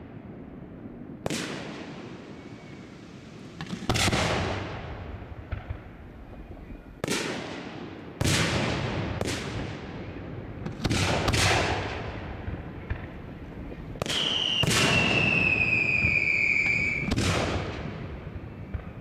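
Aerial firework shells bursting, about ten sharp bangs at uneven intervals, each dying away in a long echoing tail. Some bangs come in quick pairs. Near the end a high whistle falls slowly in pitch for about two and a half seconds, typical of a whistling firework.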